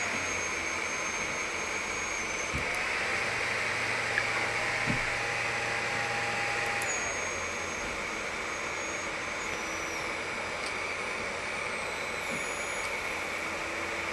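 Small cooling fans whirring steadily: the 5.5 W diode laser module's fan and the controller's power-supply fan, both running while the laser is powered. A couple of light clicks come about four and five seconds in.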